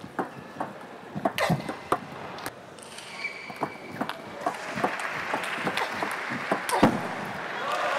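Table tennis rally: the celluloid ball clicking off bats and table in quick, irregular strikes, with a brief squeak around three seconds in. Crowd noise swells over the last few seconds as the point ends.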